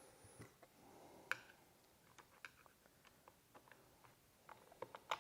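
Near silence with a few faint, scattered clicks of a Phillips screwdriver reattaching the screws of a golf cart's controller box.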